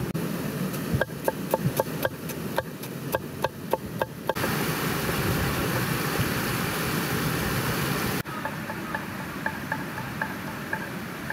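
Knife chopping on a wooden board: an even run of sharp knocks, about three a second, each with a short ring. After that comes a steady rush of flowing river water, with fainter chopping over it near the end.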